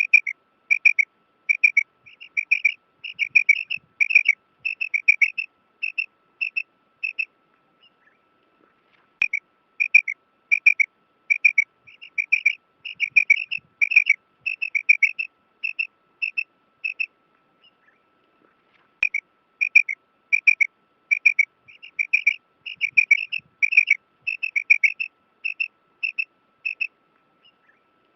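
Female quail calling: short, sharp chirping notes, often in pairs, repeated in quick runs of about two a second, with a short pause about eight seconds in and another near eighteen seconds. This is the female's call that draws male quail. A faint steady tone hums underneath throughout.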